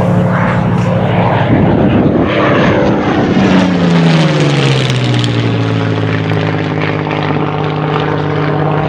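Propeller aircraft flying past, its engine drone dropping sharply in pitch as it goes by about three to five seconds in.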